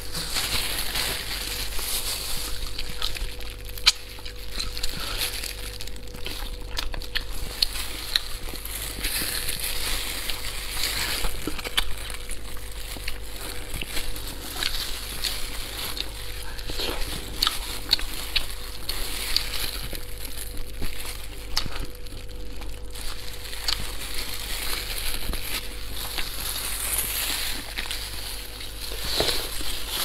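Close-miked eating of spicy braised rabbit heads: wet chewing, lip smacks and sucking at the meat, with many small crackling clicks as the head is pulled apart and gnawed. A faint steady hum runs underneath.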